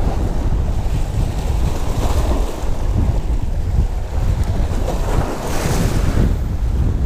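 Wind buffeting the camera microphone over waves splashing against the rocks of a jetty, with a louder splash of water over the rocks about five seconds in.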